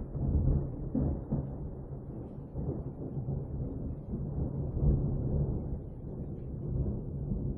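Thunder rumbling: a deep, continuous low roll that swells and fades several times.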